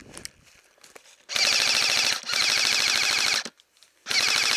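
Airsoft rifle firing on full auto, close by: three rapid bursts, the first about a second long, a slightly longer one straight after it, and a short one near the end.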